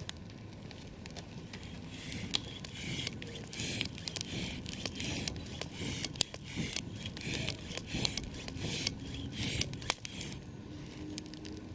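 Campfire crackling with scattered sharp pops. Over it, from about two seconds in, comes a run of rhythmic scraping crunches, about two a second, which stops a couple of seconds before the end.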